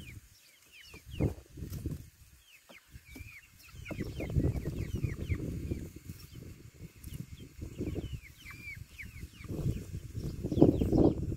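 Young Brahma-cross chickens peeping: many short, high chirps, each falling in pitch, going on throughout. Under them a low rumbling noise swells about four seconds in and again, louder, near the end.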